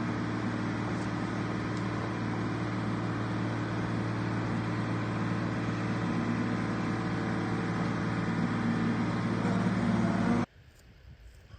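Engine running steadily with a low hum, growing slightly louder toward the end, then cut off abruptly near the end.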